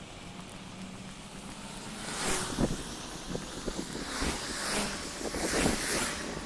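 Wind buffeting the microphone outdoors, picking up from about two seconds in as a run of irregular gusts.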